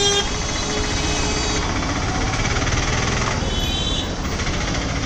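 Street traffic close by: vehicle engines running steadily, with a short horn toot right at the start.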